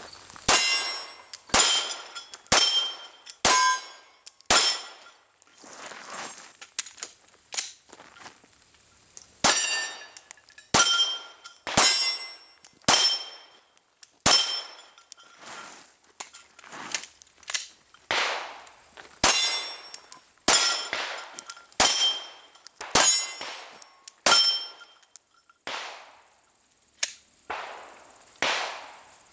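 Glock 19 9mm pistol shots in strings of four or five, about one a second, many followed by the short ring of struck steel targets; fainter shots sound between the strings.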